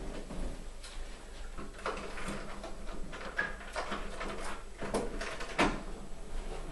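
Hotel room door being unlocked and opened: a series of clicks and knocks from the lock and handle, the loudest near the end.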